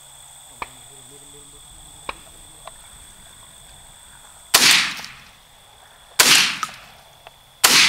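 Three shotgun shots fired up at flying doves, about a second and a half apart, each a sharp crack with a short fading echo.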